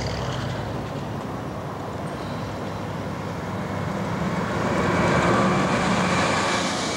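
Greyhound intercity coach driving past on a city street, its diesel engine running under the tyre noise, growing louder as it passes close about five seconds in.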